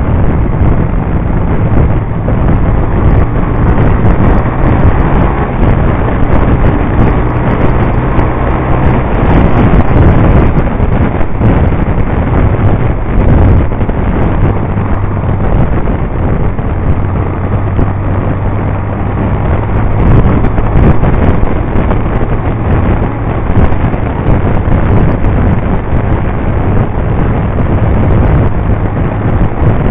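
Honda CBR125 motorcycle's single-cylinder engine running while riding, its pitch holding steady with a few shifts, under loud wind noise buffeting the microphone.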